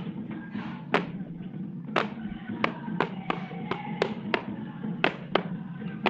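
Rubber gumboots on hanging overall puppets knocking on the ground as the puppets are jerked into a dance. The knocks come about once a second at first, then quicken to two or three a second.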